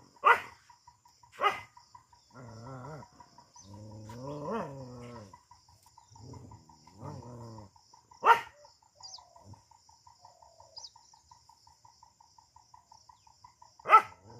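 A dog barking: four sharp single barks, two close together at the start, one past the middle and one near the end, with three longer, drawn-out pitched animal calls between them. A faint, rapid pulsing tone runs underneath.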